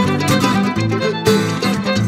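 Instrumental bluegrass break with no singing: a fiddle playing quick melodic lines over plucked mandolin and guitar accompaniment.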